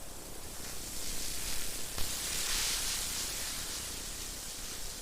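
Chicken sizzling on a grill: a steady hiss that swells about two seconds in and then eases off.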